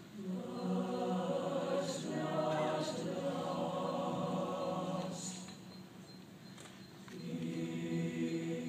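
Mixed-voice choir singing a cappella: a held chord that fades away about five seconds in, then a new chord entering about seven seconds in.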